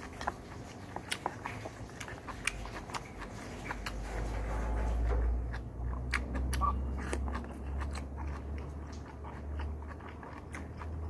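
Close-up eating sounds: chewing and biting, with many short sharp clicks as a metal spoon scrapes and taps in a takeaway lunch box. A low rumble swells around the middle.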